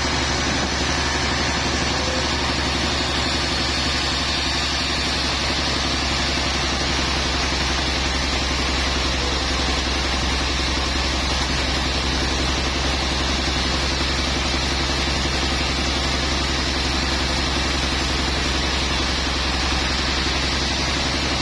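Sawmill machinery running steadily with an unchanging engine-like drone.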